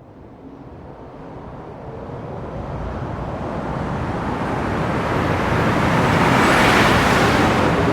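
Long whoosh sound effect: a rushing noise that swells steadily and grows brighter, loudest just before the end, then begins to ease off.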